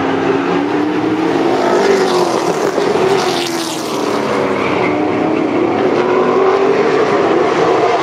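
Several late model stock cars' V8 engines running around an asphalt oval, their overlapping engine notes rising and falling as the cars pass.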